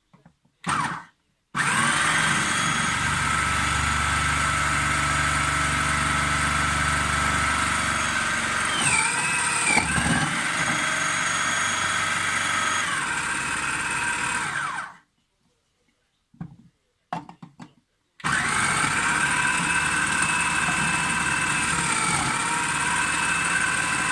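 Electric food chopper's motor running as it chops beetroot. There is a short pulse first, then a run of about thirteen seconds whose pitch dips briefly about halfway through, a few quick pulses, and a second long run near the end.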